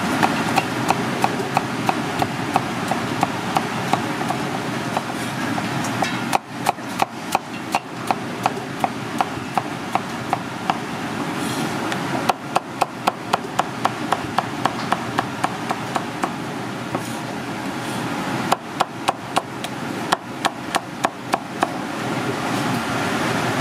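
Cleaver chopping squash into strips on a wooden cutting board: quick runs of sharp knocks, several a second, with short pauses between runs. A steady background hum runs underneath.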